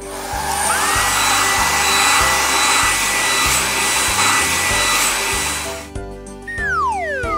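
Cartoon car-wash blower sound effect: rushing air with a whine that rises and then holds steady. It stops about six seconds in, over background music with a steady beat. A falling whistle-like glide follows near the end.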